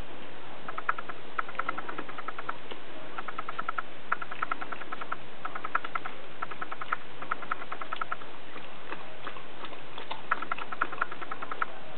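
Newborn puppies squeaking and mewling, in short bursts of rapid little squeaks that come again about every second.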